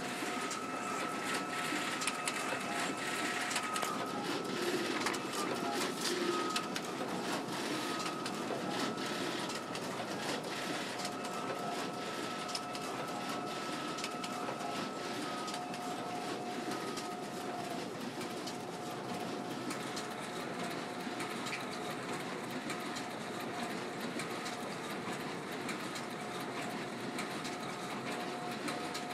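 Ricoh C751EX colour production printer running a continuous print job, feeding sheet after sheet through to its output tray: a steady mechanical running sound with frequent quick clicks and two steady tones.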